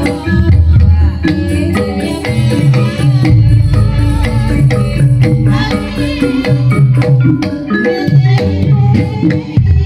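Gamelan ensemble playing ebeg accompaniment music: busy, loud melodies on struck tuned instruments over steady drumming.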